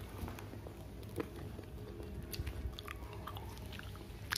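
Someone chewing food close to the microphone, with faint scattered clicks and crackles and one sharp click near the end.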